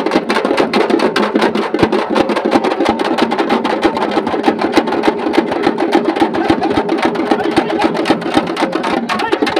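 Several large frame drums (dappu) beaten rapidly with sticks in a fast, unbroken drumming rhythm.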